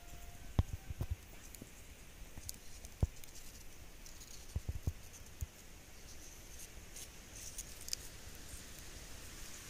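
Handling noise from a handheld camera: a few short low thumps and bumps, clustered about a second in, once near three seconds and again around five seconds, over a steady faint hiss of outdoor ambience.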